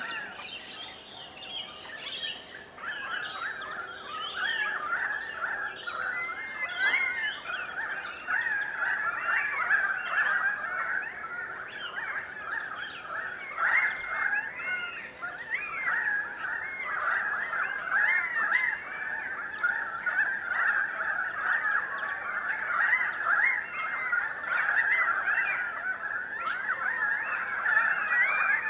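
A large flock of currawongs calling to each other: many gliding, overlapping calls at once in a continuous chorus.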